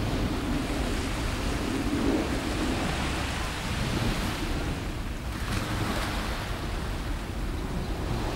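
Small waves washing onto the shore of a calm sea, a steady rush with a slightly brighter surge about five seconds in, over low wind noise on the microphone.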